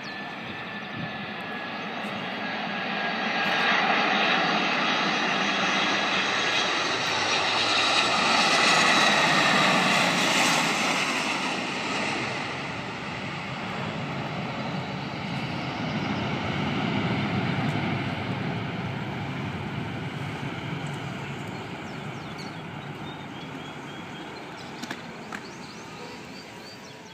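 Airliner flying past: its engine noise swells to a peak about nine seconds in, with a high whine that falls in pitch as it goes by, then the noise eases off and fades.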